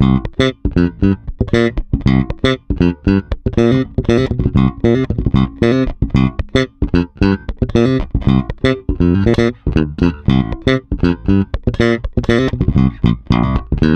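Modern Vintage MVJ4-66 Jazz-style electric bass playing a funky line of many short, sharply attacked notes.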